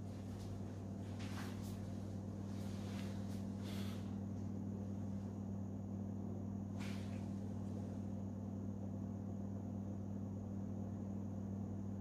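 Room tone: a steady low electrical hum with a faint high whine above it, and a few faint soft rustles or knocks.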